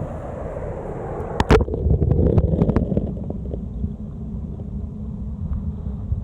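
Steady rush of a waterfall, muffled by wind buffeting the microphone. There is one sharp knock about one and a half seconds in and a few smaller clicks just after.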